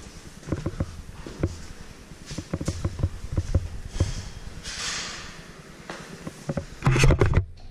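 Footsteps on a concrete floor in a bare corridor, a series of irregular knocks with some rustling of clothing or the handheld camera. A louder rustle and knock comes near the end, then the sound cuts off abruptly.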